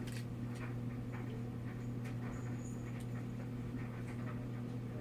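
Steady low electrical hum with faint, irregular small clicks, as of small camera parts being handled.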